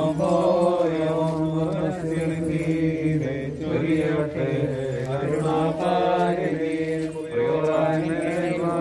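Orthodox liturgical chanting by men's voices: a continuous sung recitation on held, slowly moving pitches, with short breaks for breath.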